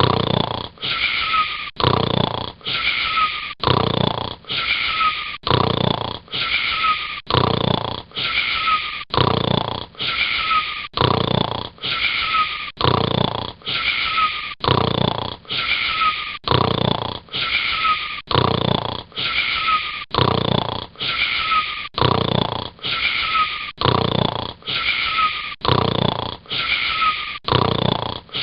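Snoring in an even, unbroken rhythm of about one snore a second.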